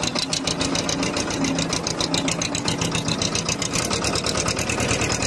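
Escorts 335 tractor's diesel engine running under way, a fast, even beat of exhaust pulses close by.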